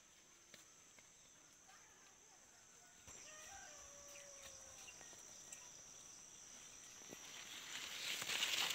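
Steady high-pitched insect drone over a quiet rural background, with a few faint bird calls a few seconds in. Near the end, rustling footsteps through leafy crop plants grow louder and become the loudest sound.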